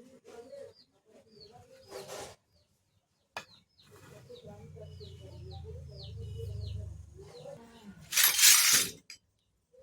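Small plastic toy kitchen pieces and their packaging being handled: light clicks and clinks with short squeaks, a low hum in the middle, and a loud rustling burst of about a second near the end.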